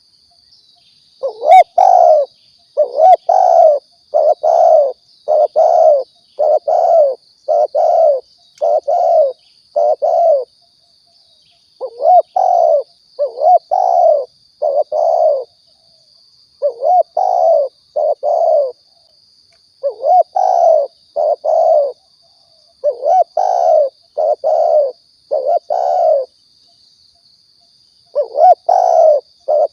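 Spotted dove (tekukur) cooing in repeated short phrases of several low notes each, with brief pauses between phrases. This is a lure call used to draw wild doves in. A faint steady high whine runs underneath.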